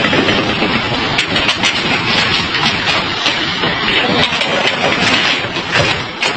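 Storm wind blowing hard across the microphone with heavy rain: a loud, steady rushing with sharp clicks and taps scattered throughout.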